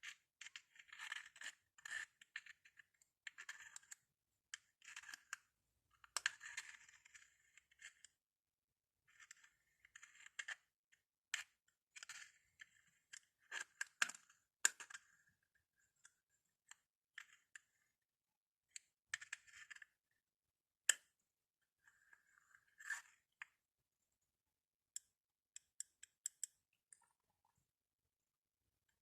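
Glass bottles being tapped and scraped in short bursts of clicks and scratches with silent pauses between them, thinning to a few single clicks near the end.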